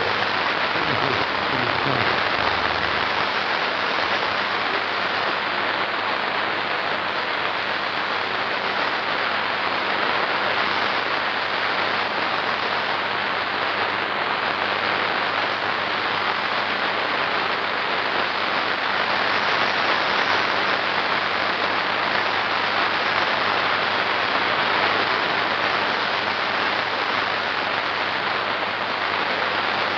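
A steady, even hiss that does not change in level, with no separate drops, knocks or tones in it.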